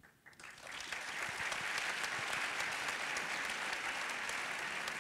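Large audience applauding. The clapping starts right away, builds within about a second to a steady level and holds.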